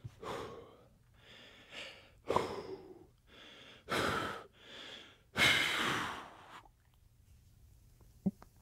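A man breathing hard while straining in muscle poses: a run of about eight deep breaths in and out, ending in one long exhale about five and a half seconds in. A single short click near the end.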